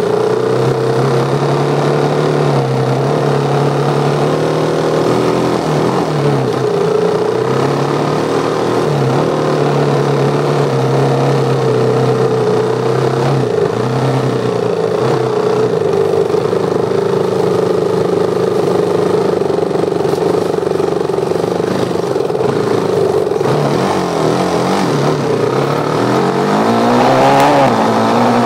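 Dirt bike engine running while being ridden, its note mostly steady and dipping briefly a few times as the throttle eases, then climbing in pitch near the end as it revs up to accelerate.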